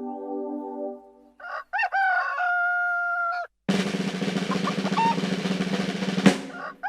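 Rooster crowing: a call that rises and then levels off into a long held note, after a longer held call fades out about a second in. Then about three seconds of dense rattling noise.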